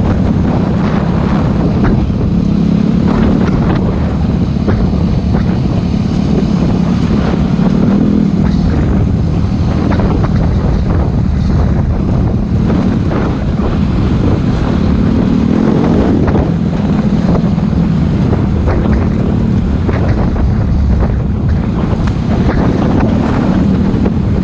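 Enduro motorcycle engine running under way, its note swelling and easing several times with the throttle, with wind rushing over the microphone.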